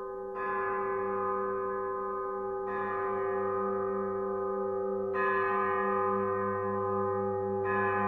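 A deep bell tolled slowly, struck four times about two and a half seconds apart. Each stroke rings on over a steady low hum, a mourning knell.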